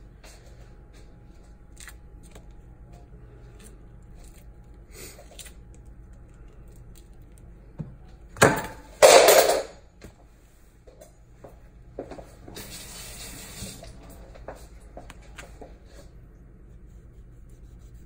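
Pomelo segment membranes being peeled apart by hand: small tearing and crackling sounds, with two louder noisy bursts about halfway through and a short steady rustle a few seconds later.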